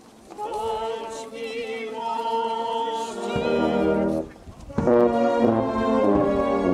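Brass band playing a slow hymn tune in long held notes. It breaks off briefly about four seconds in, then comes back louder with full low brass.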